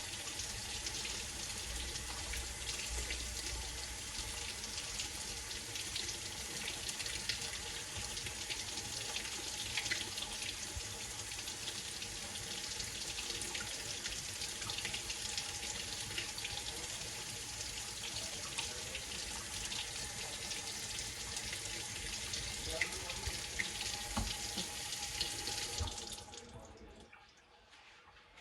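Kitchen tap running water into a sink, a steady rush with small clinks and splashes; it shuts off about two seconds before the end.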